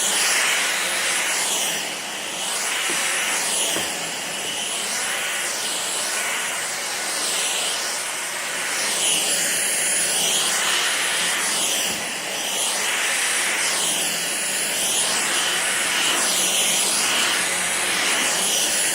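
Dyson cordless stick vacuum running steadily with a high whine, pushed back and forth over carpet, its sound shifting with each stroke about every two seconds.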